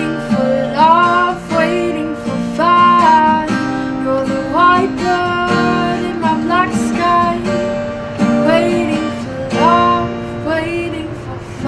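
Acoustic guitar strumming chords while a woman sings a gliding melody over it.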